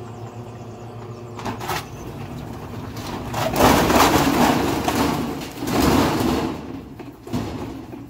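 GE top-loading washing machine spinning a load of clothes off balance: a steady motor hum under loud rattling and banging as the tub and cabinet shake, surging loudest twice, a few seconds in and again around the middle, with sharp knocks near the start and near the end.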